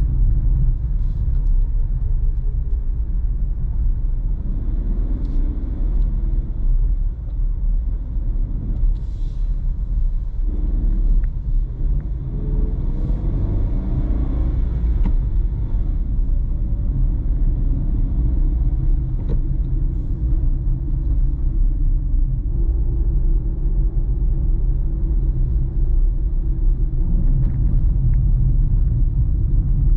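A car driving along a road: a steady low rumble of engine and tyre noise, shifting slightly in pitch now and then.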